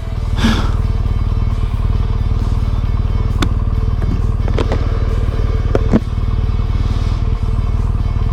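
Motorcycle engine running steadily while riding, under a loud, even low rumble, with a few short clicks along the way.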